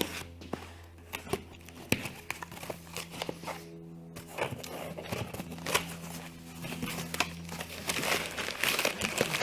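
Cardboard box and packaging being opened by hand: crinkling and tearing with scattered clicks, busier near the end.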